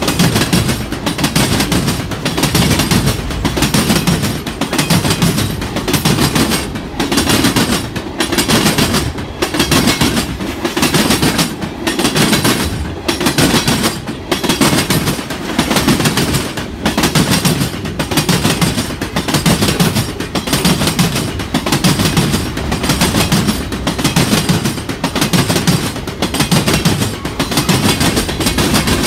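Mixed freight train's cars rolling past close by, steel wheels knocking on the rails in a steady rhythm, about one group of knocks a second.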